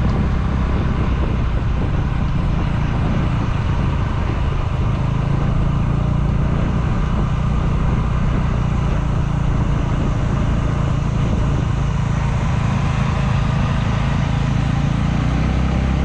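A motor vehicle's engine running steadily at an even cruising speed, with road and wind noise, heard from on board the moving vehicle.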